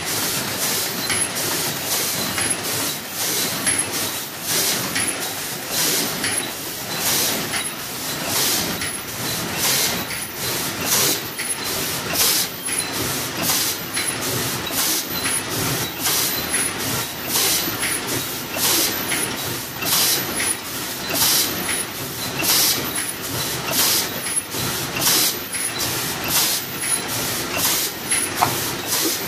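Paper cup forming machine running, cycling steadily with a sharp high-pitched burst about once a second over continuous mechanical clatter.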